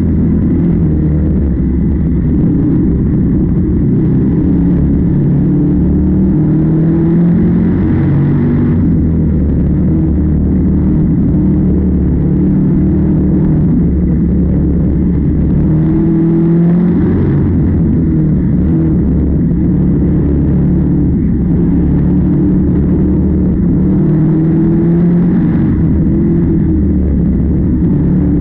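Engine of corn-harvesting machinery running steadily, its pitch rising and falling slightly a few times.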